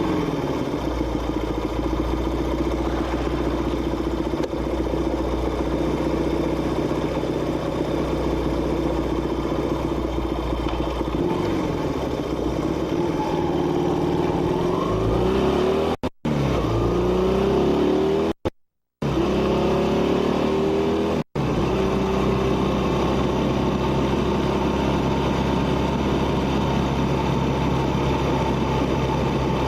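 1971 Honda Dream 250cc motorcycle's engine and exhaust running under way with a steady note. About halfway through, the pitch falls and climbs again several times. The sound cuts out briefly three times.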